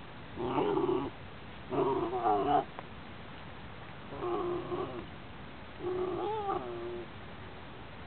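Cairn terrier giving four short, wavering yowls, each under a second long, with pauses between them.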